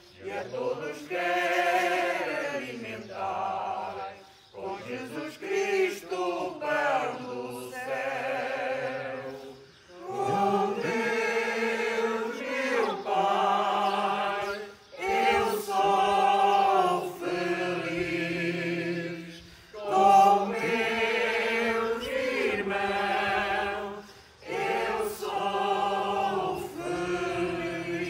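Small congregation singing a Portuguese Catholic entrance hymn together, in sung phrases a few seconds long with short pauses for breath between them.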